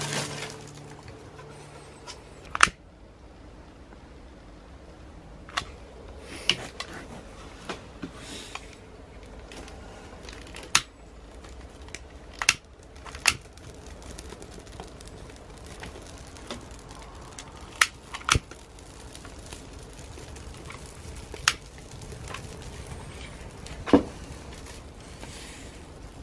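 Small fire of driftwood and dry leaves being lit and catching, giving about ten sharp, scattered cracks and pops over a low steady background.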